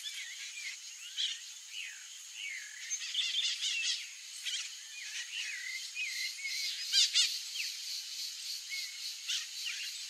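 Several songbirds calling with short, looping chirps and whistles, busiest about three seconds in, with a loud trill about seven seconds in, over a thin steady high tone.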